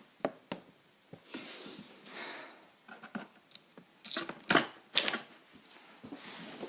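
A cardboard box being opened and handled: irregular rustles and scrapes of cardboard, with a cluster of louder rubs and knocks about four to five seconds in.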